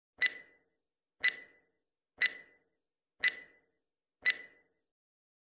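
Countdown timer sound effect: five identical sharp clock ticks, one a second, each with a brief high ring.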